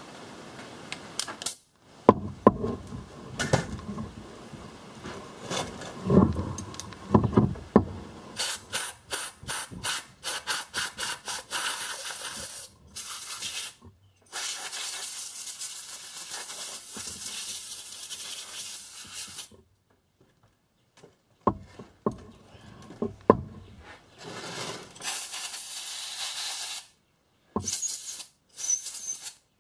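Compressed air from a blow gun hissing into a Wright saw engine's cylinder to blow out packed mud and dirt: first a string of short quick puffs, then long steady blasts, with short puffs near the end. Knocks and clatter come before the air starts.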